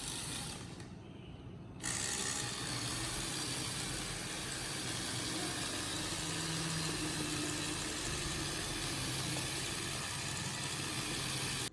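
Motorized Lego Technic bulldozer model running, its small electric motor and plastic gears making a steady whir that starts suddenly about two seconds in.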